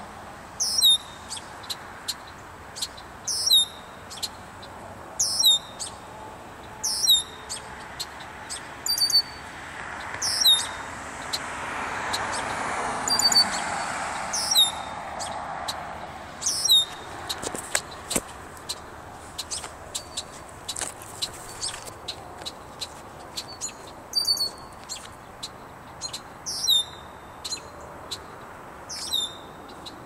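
A bird calling: a loud, high note that slurs downward, repeated every couple of seconds, with faint quick ticks between the calls and a longer pause in the second half.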